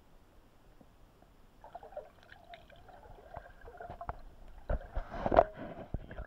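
Water heard through an action camera's waterproof underwater housing: muffled and quiet at first, then sloshing and gurgling with scattered knocks against the case, building to a loud cluster of splashes and knocks about five seconds in as the camera moves up through the surface.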